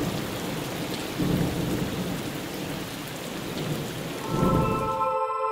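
Steady heavy rain with low rolling thunder, swelling about a second in and again near the end. Just before the end the storm cuts off and soft ambient music with long held tones begins.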